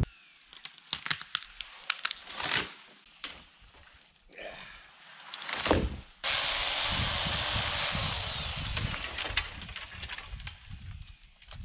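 Wood knocking and cracking in scattered sharp hits. About halfway, a power saw cutting wood starts suddenly, a steady loud noise with a high whine that drops in pitch, then fades slowly near the end.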